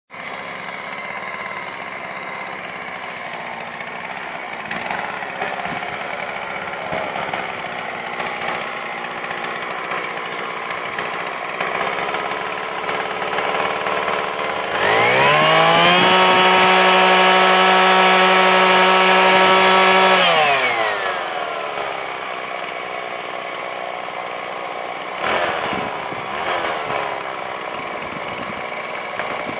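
Two-stroke chainsaw running near idle, then revved up about halfway through to a steady high pitch and held there for about five seconds before dropping back down.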